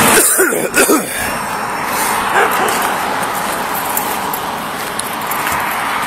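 A car passes close by on the road at the start, followed by a steady rushing noise. About half a second in there is a brief yelp-like vocal sound.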